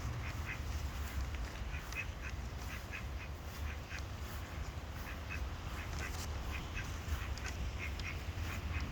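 Ducks quacking in quick runs of short calls, over a steady low rumble.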